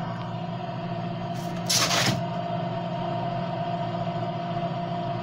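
Steady drone of a light airplane's engine and propeller heard inside the cockpit on final approach. About two seconds in, a short burst of hiss of about half a second rises over it.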